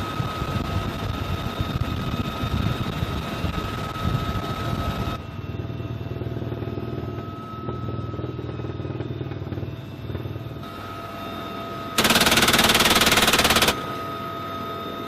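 Helicopter door gun firing one long, very fast burst of about a second and a half, near the end. Under it, the UH-1Y Venom's turbine whine and rotor noise run steadily.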